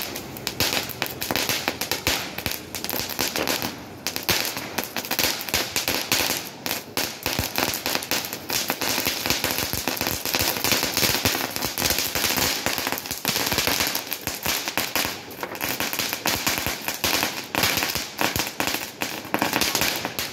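Firecrackers going off on the ground, a rapid, continuous run of sharp pops and crackles.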